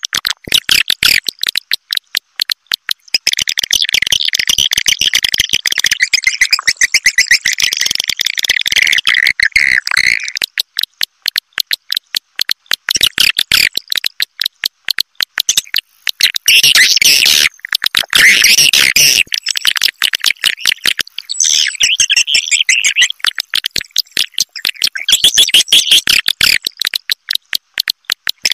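Recorded swiftlet calls: a dense stream of rapid clicking chirps and twitters, swelling and easing in several louder stretches. It is a swiftlet lure call of the roosting ('inap') kind, played to draw swiftlets in to roost.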